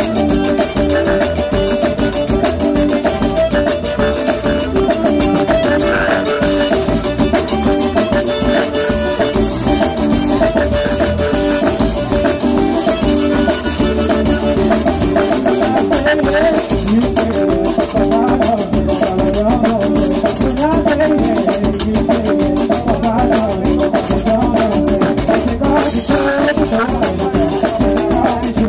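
Live zydeco band music played loud through a PA speaker stack at close range, driven by a fast, steady scraping rhythm from a rubboard under sustained melody notes.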